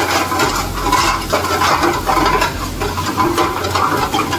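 Chopped garlic and green chillies frying in hot oil in a steel pan, sizzling and crackling steadily, with a metal ladle stirring and scraping against the pan.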